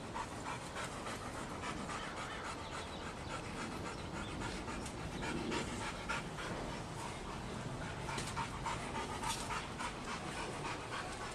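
A dog panting steadily in quick, short breaths.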